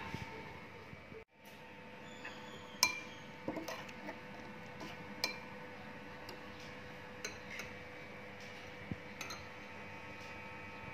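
A metal spoon stirring a chili dipping sauce in a ceramic bowl, making light scattered clinks against the bowl over a faint steady hum.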